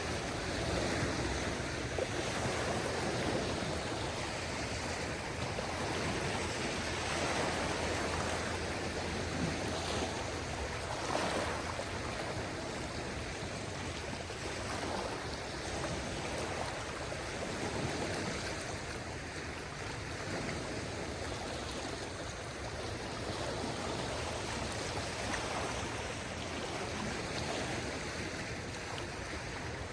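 Small waves of a calm sea washing in at the shore: a steady wash of water that swells gently every few seconds.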